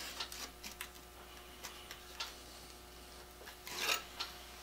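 Scattered light clicks and taps of a steel plane blade and a metal squaring jig being handled on a grinder's tool rest, with a brief scrape a little before four seconds in. A faint steady hum runs underneath.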